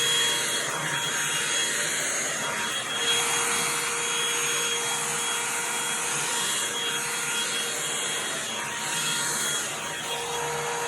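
Handheld hair dryer running steadily, a loud rush of air with a faint motor whine; the hiss swells and fades as the airflow is moved through the hair.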